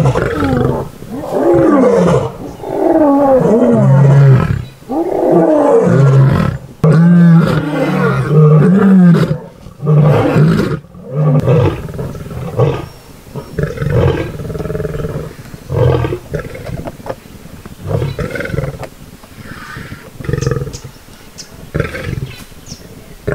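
A lioness roaring: a bout of long, loud roars with sweeping pitch, which about halfway through trail off into a string of shorter, quieter grunts about once a second.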